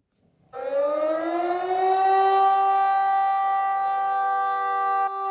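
A siren starting suddenly and winding up in pitch for about a second and a half, then holding a steady multi-note tone.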